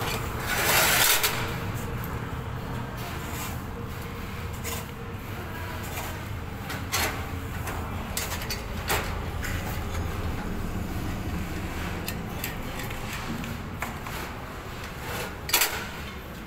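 Steel rolling-shutter slats and end pieces being handled: a loud scrape of metal about a second in, then scattered clicks and knocks, one sharp knock near the end. A low steady hum runs underneath.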